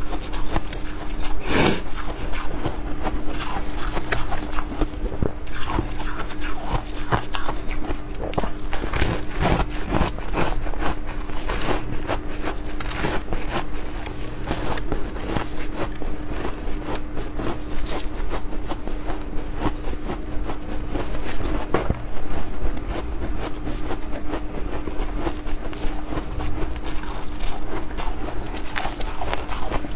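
Shaved ice being chewed close to the microphone: a dense, continuous stream of crisp crunches, with a faint steady hum underneath.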